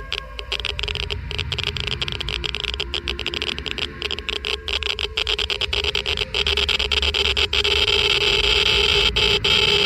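Geiger-Müller counter clicking irregularly and rapidly as it counts ionizing particles, over a steady low rumble and hiss. The clicks grow louder and denser from about six seconds in.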